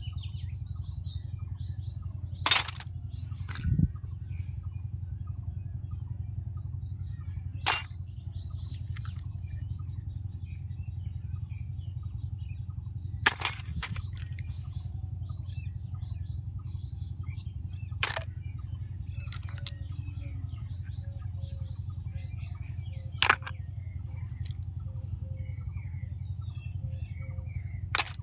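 Sharp clicks of small plastic toy pieces being handled and set down, one about every five seconds, over a steady low hum, with birds chirping in the background.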